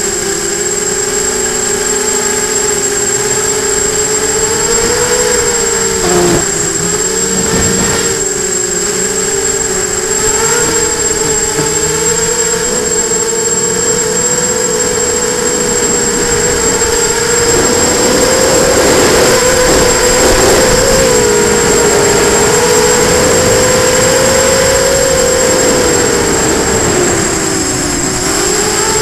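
FPV hexacopter's electric motors and propellers whining as heard from its onboard camera, the pitch rising and falling with the throttle and dipping briefly about six to eight seconds in and again near the end. A thin steady high tone sits over it.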